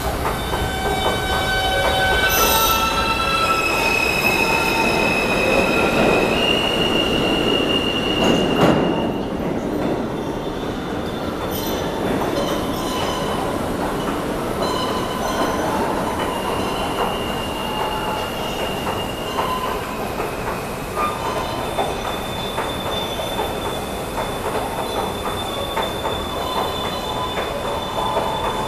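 An R160A-2 subway train with Alstom ONIX propulsion accelerating out of an underground station. Its traction motor drive makes a series of tones that step up in pitch over the first several seconds. Then rumble, clacking over rail joints and a steady high wheel squeal as it pulls away into the tunnel.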